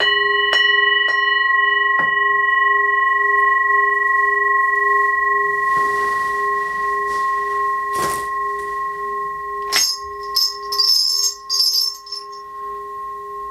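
A brass singing bowl struck once, ringing with a low wavering hum and several higher overtones that fade slowly. A little under ten seconds in, a cluster of small bells is shaken in several short jingling bursts over the ringing.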